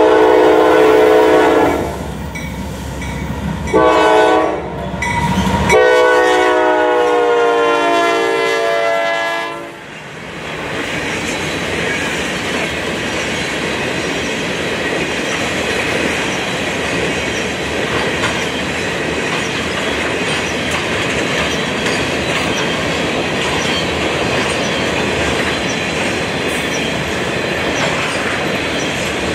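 Norfolk Southern GE AC44C6M diesel locomotive's air horn sounding loudly in three blasts: a long one, a short one, then a long one whose pitch drops as the locomotive passes. After about ten seconds the horn gives way to a train of loaded tank cars rolling by, with steady wheel-on-rail noise and clickety-clack over the rail joints.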